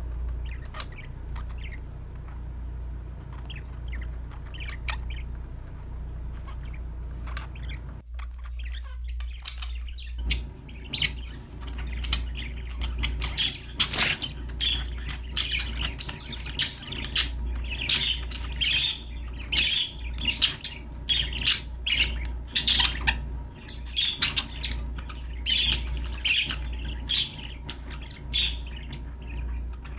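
Budgerigars chirping and squawking, sparse at first, then busier and louder from about a third of the way in, over a steady low hum.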